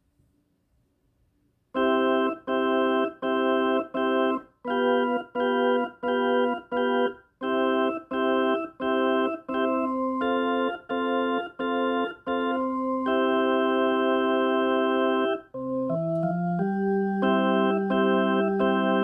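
Electronic keyboard playing a simple melody of short, repeated notes, starting about two seconds in; each note holds at an even level and stops sharply when the key is let go. Later a long note is held, and then a lower held note joins under the tune.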